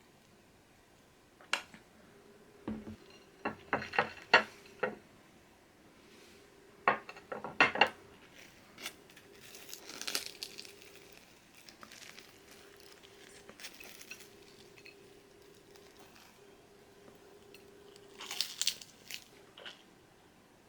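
Hard small objects handled and set down: a run of sharp knocks and clinks in the first few seconds, then stretches of rustling, with a faint steady hum underneath.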